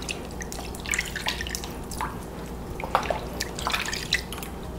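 Water dripping and splashing lightly in a glass bowl as hands wash pieces of raw meat in salted water and pull fat off them: irregular small drips and splashes, several a second.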